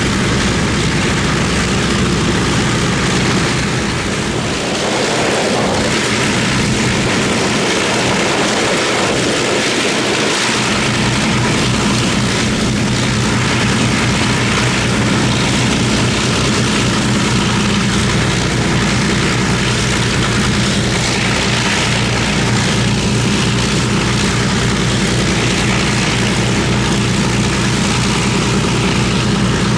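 Avro Lancaster's Rolls-Royce Merlin V12 engines running steadily during a ground engine run. There is a brief dip in loudness about four seconds in.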